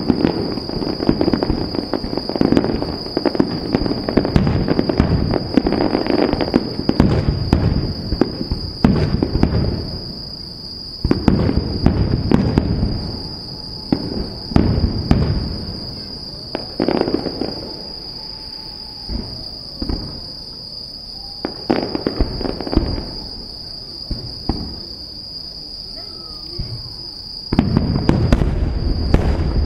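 Aerial fireworks display: shells bursting in quick volleys of booms and crackles, thinning to scattered bangs midway, then building to a dense barrage again near the end.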